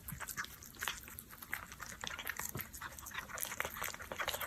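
A cat eating wet canned food: a quick, irregular run of wet chewing and licking clicks.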